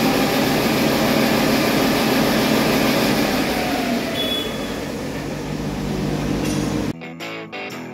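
Paccar MX13 12.9-litre inline-six diesel engine on a test run, its speed and whine falling gradually over the first few seconds and then running steadily lower. About seven seconds in, it cuts off abruptly to a music jingle.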